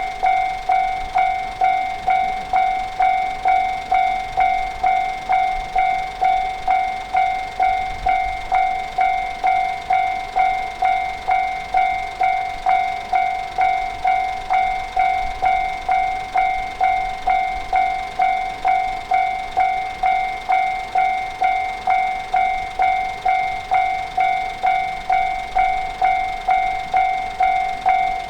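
Japanese railroad crossing warning bell ringing 'kan-kan' at a steady pace, about one and a half strikes a second, each clear ding fading quickly before the next.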